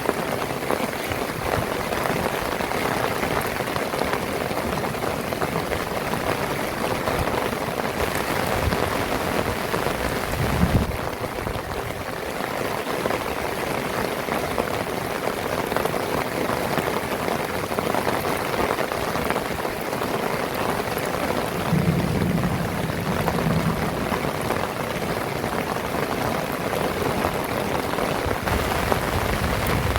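Heavy rain falling steadily, an even hiss of drops on surfaces. A short low sound comes about ten seconds in, and a longer one a little past twenty seconds.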